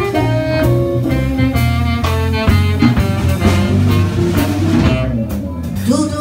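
Live jazz band playing an instrumental passage: a melody line of held notes over a walking bass and drum kit, with regular cymbal and drum hits.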